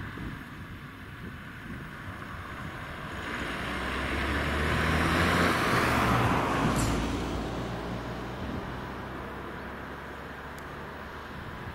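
A motor vehicle passing by: engine hum and running noise swell to a peak about five to six seconds in, then fade away.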